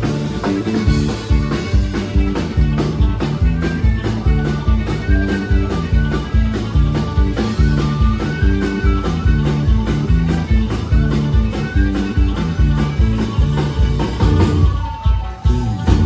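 Live rock band playing with a steady drum beat, bass and electric guitar under a high melody line from a small wind instrument played into a microphone.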